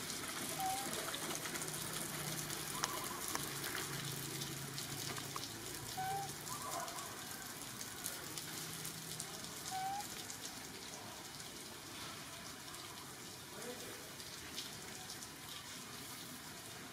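Steady hiss of outdoor background noise, with a few brief faint chirps now and then.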